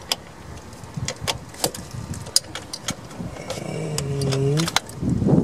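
Ratchet with a deep socket being worked on engine bolts: scattered, irregular sharp metallic clicks. A brief held voice sound comes about four seconds in, and a louder thump near the end.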